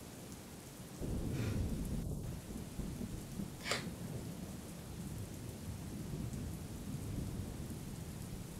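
Thunderstorm: rolling thunder that swells suddenly about a second in and rumbles on under a steady hiss of rain, with a brief sharp crackle a little before halfway.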